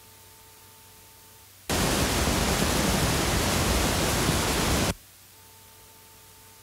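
Dolby test-film noise signal for the center channel, alternating quiet and loud. A low hiss switches abruptly to loud noise under two seconds in, holds for about three seconds, then drops back to the quiet hiss. A faint steady tone sits under the quiet phases. The loud phase is the level meant to read 85 dBC on a sound level meter, and the quiet one the just-audible level, for setting a cinema's fader.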